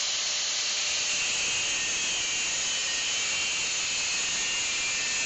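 Angle grinder with a thin cutoff disc cutting through a round steel bar held in a bench vise. The hissing grinding starts abruptly and holds steady.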